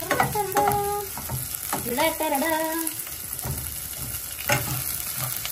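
Sliced onions frying in hot oil in a nonstick pot, sizzling steadily, while a wooden spatula stirs them and scrapes and knocks against the pan.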